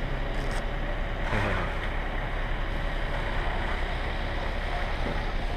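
Wind rushing over the camera microphone, a steady noisy rumble with a short falling sound about a second and a half in.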